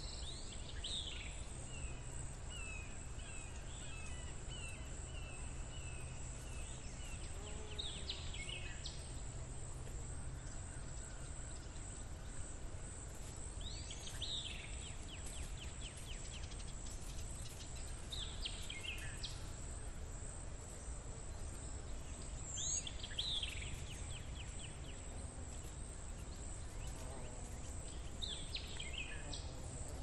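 Outdoor ambience of birds calling: short falling chirps every five or six seconds, and a quick run of repeated chirps a couple of seconds in. Under them are a steady low rumble and a constant high-pitched tone.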